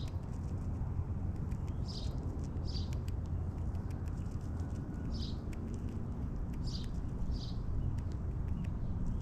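Small birds giving short high chirps, one every second or two, over scattered light ticks and a steady low rumble.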